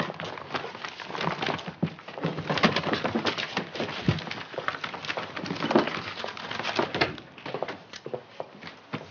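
Hurried rustling and knocking of papers, books and small objects being shuffled by hands on a desk, a quick run of clicks and scrapes.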